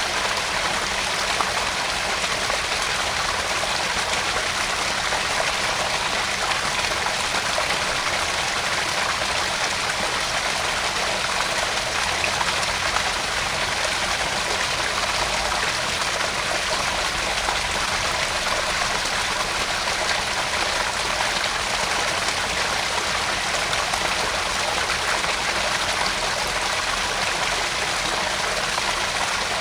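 Small garden pond waterfall: water falling and splashing into the pond in a steady, even rush with a trickling edge.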